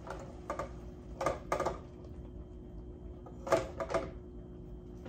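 A few short scrapes and knocks from a pan being shifted on a portable electric burner, in three brief clusters, over a faint steady hum.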